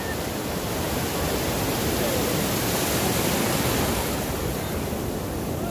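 Ocean surf breaking and foaming water washing around the shallows, a steady rush that swells a little about halfway through.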